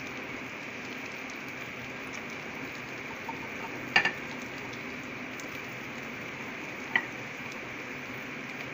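Marinated chicken pieces sizzling steadily as they fry in butter and oil in a shallow pan, with a sharp click about halfway through and another about three seconds later.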